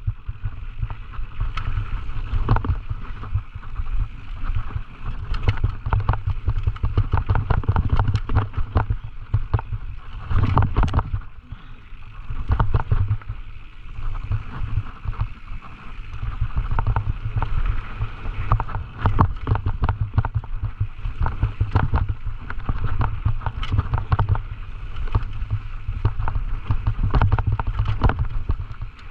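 Scott Gambler downhill mountain bike ridden fast over rough ground: wind buffeting the microphone over a constant clatter of tyres, chain and frame, dense with small knocks. It eases briefly about twelve seconds in.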